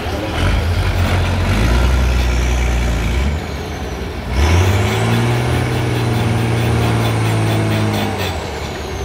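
Trial truck's engine labouring under load in deep mud, easing off briefly about four seconds in, then revved up and held high for several seconds before dropping back near the end, with a faint high whine rising and falling above it.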